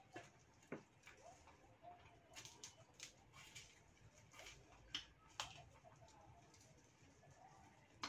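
Faint eating sounds: scattered small clicks and cracks as fried mantis shrimp are shelled by hand and chewed.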